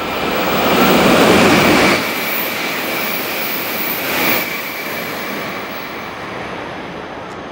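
Eight-car N700-series Shinkansen passing through a station at high speed without stopping: a loud rush of air and wheel noise that builds to a peak, drops suddenly about two seconds in, surges briefly again as the tail goes by about four seconds in, then fades to a lingering whoosh.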